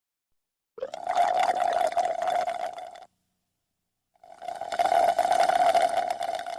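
Drinking sounds: two long stretches of liquid noise, each about two to three seconds, carrying a steady tone and separated by a short gap.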